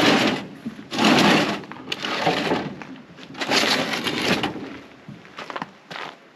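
Four loud bursts of crunching, crackling handling noise in the first four and a half seconds, then a few light clicks and knocks.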